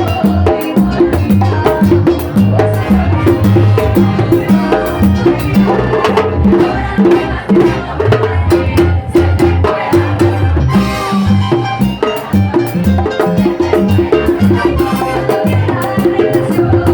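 Latin dance-band music with timbales: sharp, rapid strokes on the drum shells and bell over a steady bass line and band.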